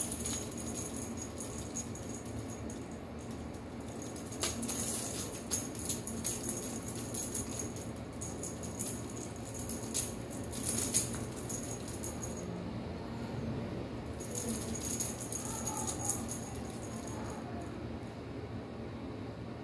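A feather wand cat toy jingling in bursts as it is dangled and batted by a kitten's paws, with a few light knocks, stopping for a couple of seconds about two-thirds of the way through.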